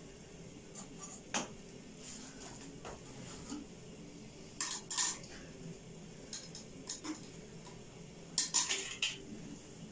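Kitchen utensils and dishes clinking: one clink early, a pair about halfway, and a quick run of clinks near the end, over a faint steady background.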